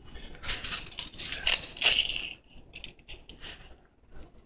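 Crisp dehydrated kale and broccoli leaves crunching and rustling as they are handled in a glass bowl, in a run of crackly bursts over the first two seconds or so, then dying down to a few faint rustles.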